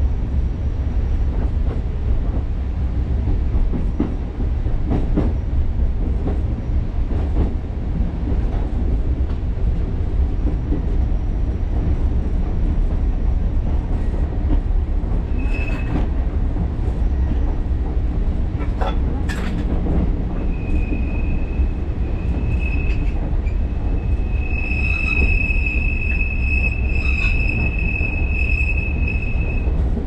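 Alishan Forest Railway narrow-gauge train running with a steady low rumble and occasional knocks from the wheels and track. About halfway through a high wheel squeal sets in, briefly at first, then held for most of the last ten seconds.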